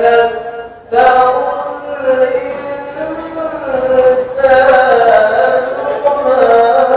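A male qari reciting the Quran in the classical melodic tilawah style: long held notes that bend and glide in pitch in an ornamented phrase, resuming after a short breath about a second in.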